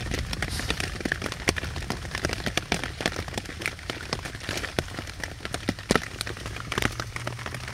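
Rain pattering on a tarp overhead: a steady, irregular scatter of sharp drop ticks.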